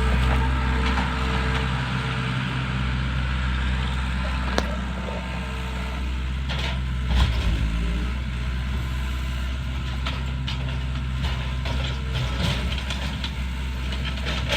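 A heavy machine's engine running steadily at a low, even note, with a few sharp knocks and cracks, the loudest a little past halfway.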